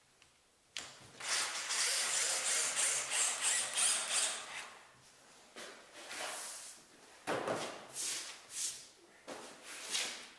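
Power drill driving a screw-in plastic bumper foot into a hardboard panel: a grinding whirr of about three and a half seconds, starting about a second in, followed by several shorter bursts.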